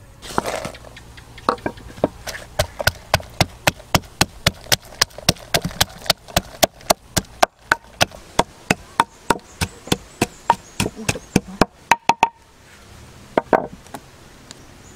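Wooden pestle pounding in a mortar: a steady run of sharp knocks, about three or four a second, that stops about twelve seconds in. One more thump follows shortly after.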